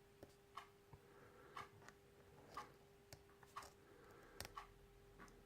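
A clock ticking faintly and evenly, about once a second, with a few fainter irregular clicks of a lock pick and tension wrench working a padlock's pins and a steady low hum underneath.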